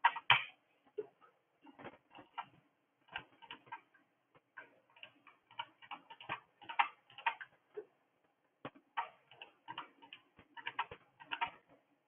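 Quiet, irregular computer mouse clicks, some in quick pairs, as an alarm code is clicked in on an on-screen keypad.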